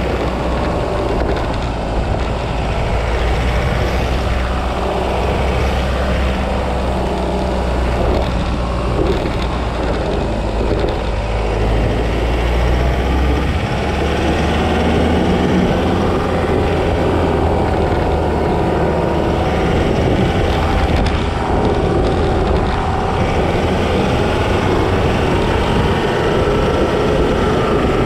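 Off-road vehicle engine running steadily while driving over a dirt and sand track, its note rising and falling gently with the throttle over a low rumble that eases about halfway through.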